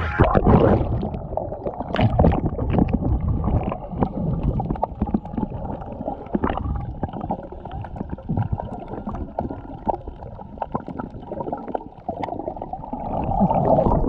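Seawater heard through an action camera held underwater: muffled sloshing and gurgling, with scattered clicks and knocks from the swimmer's movements. It is loudest just after going under and swells again near the end as the camera nears the surface.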